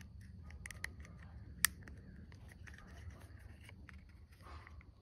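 Small motorcycle parts being handled and fitted: scattered soft clicks and rubbing of a rubber spacer and metal turn-signal bracket, with one sharper click about a second and a half in, over a low steady hum.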